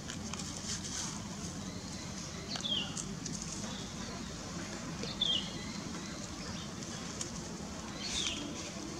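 A bird calling with short, high, falling chirps, three times about two and a half seconds apart, over steady outdoor background noise.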